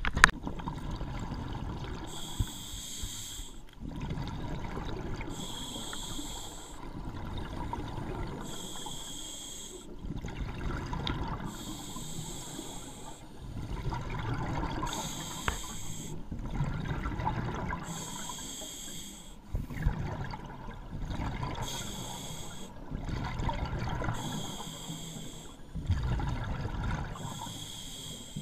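Scuba diver breathing through a regulator underwater: nine hissing inhales about three seconds apart, each followed by a low bubbling exhale.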